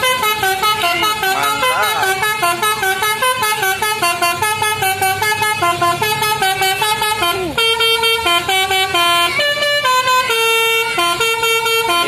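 Tour bus telolet horn playing a tune: a quick run of short stepped notes, then a brief falling glide past the middle, and slower, longer held notes after it.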